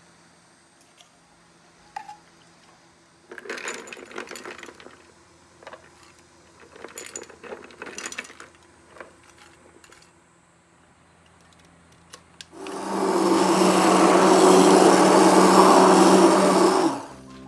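Metal ladle clinking and scraping as walnuts are scooped out of a glass jar into a steel pot, a few scattered clatters. Then a handheld immersion blender runs steadily for about four seconds, puréeing beans and walnuts into soy milk, and cuts off abruptly.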